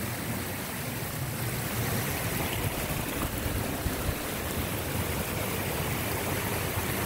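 Muddy floodwater rushing along paths and between graves, a steady rushing wash.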